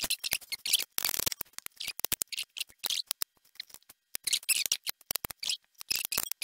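Rapid runs of detent clicks from rotary switches being turned by hand: first the range selector of a Soviet Ц4315 analogue multimeter, then the stepped dials of a decade resistance box.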